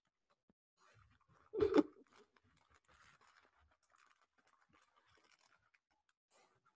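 Faint rustling and small clicks of boxed dry goods being handled while rummaging for a pasta box, with one short, louder bump about a second and a half in.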